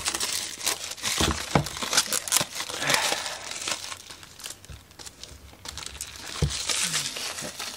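Clear plastic shrink wrap being peeled and crinkled off a cardboard kit box: a run of crackling rustles that thin out in the middle and pick up again near the end, with a few soft thumps.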